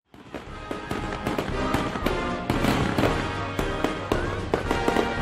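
Fireworks going off in quick succession, a rapid run of pops and bangs, with music playing underneath.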